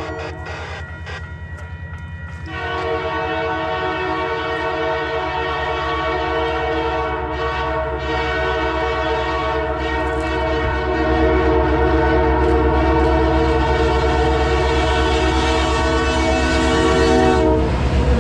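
The CPKC Holiday Train's diesel locomotive approaching while its air horn sounds a chord, weaker for the first couple of seconds, then a long blast held steady until it cuts off just before the locomotive passes. Under the horn the locomotive's low rumble grows louder as it comes close.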